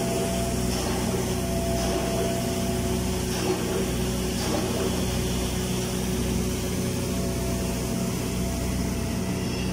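Automatic girth welder (AGW) running its capping pass along a horizontal tank seam: a steady machine hum with a low drone and a couple of steady higher tones.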